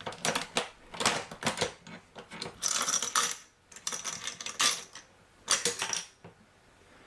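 Hand-operated ammunition belt-loading machine being cycled: five bursts of metallic clicking and clinking, about one every second and a half, as cartridges are pushed into the belt links.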